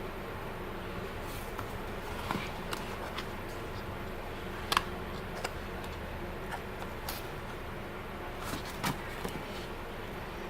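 Steady background hum with a few scattered short clicks and taps, the sharpest about halfway through and another near the end.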